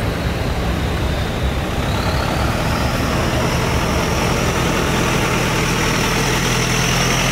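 Off-road 4x4's engine running steadily as the vehicle approaches on a dirt road, with a thin high whine that slowly rises in pitch.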